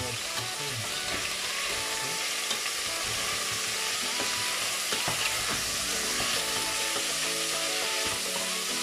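Beef cubes sizzling steadily in hot oil in a stainless steel pot, being browned, while a wooden spatula stirs them with a few light knocks against the pot.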